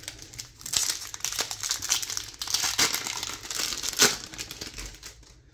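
Foil wrapper of a Topps Chrome baseball card pack crinkling and being torn open, a run of crackly rustles with a sharp rip about four seconds in.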